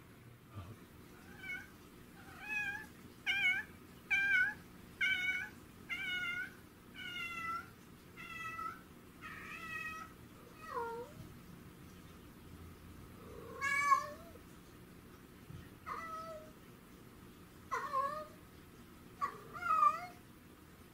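Domestic cat meowing in a quick run of short meows, about one a second, then more spaced-out meows in the second half.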